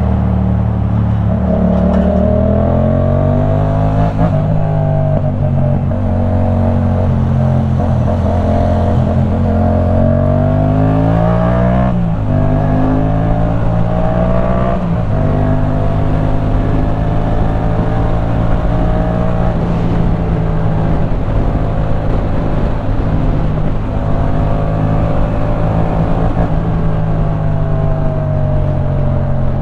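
2015 Yamaha MT-07's 689 cc parallel-twin engine through a Leovince One Evo full-system exhaust, heard from the rider's seat while riding. The engine pitch climbs under throttle and drops suddenly at upshifts about 4, 12 and 15 seconds in, then holds a nearly steady cruising note.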